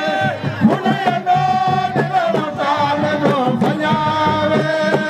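A man singing long, wavering held notes into a microphone, amplified over a steady drum beat.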